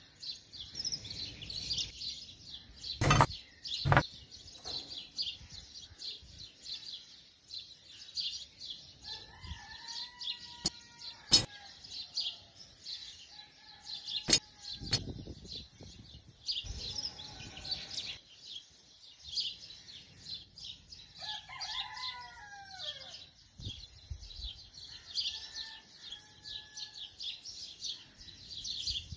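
A rooster crowing a few times, loudest in the second half, over constant chirping of small birds. A few sharp clicks and taps sound in the first half.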